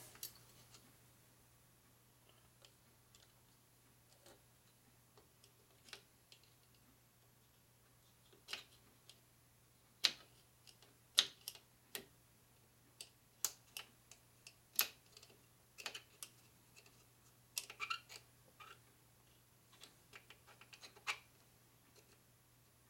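Scattered small, irregular metal clicks and ticks from a small tool working a piston wrist-pin clip into its groove, over a faint steady hum.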